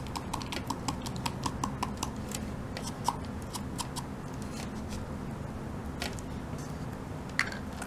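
Baking soda being tapped out of a small plastic cup into a plastic toy cauldron: a run of quick light ticks, about five a second at first, then sparser, over a steady low background hum.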